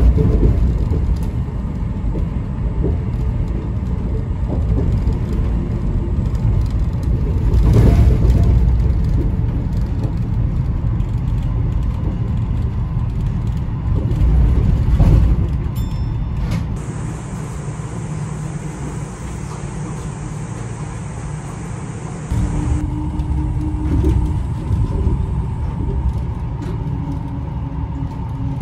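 Rubber-tyred suspended monorail car of the Chiba Urban Monorail running, heard from inside the front cab: a steady low rumble that swells about 8 and 15 seconds in. A high steady whine holds for several seconds past the middle, and a lower steady hum comes in near the end.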